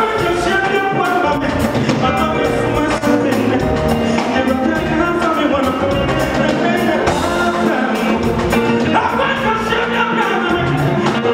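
Live gospel band music: a man singing into a microphone over drums, hand drums and guitar, with a steady beat.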